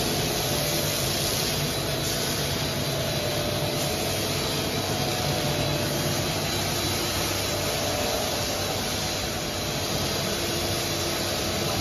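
A two-layer bubble wrap making machine running steadily: a constant mechanical hum and hiss with a few faint steady tones, no change in level.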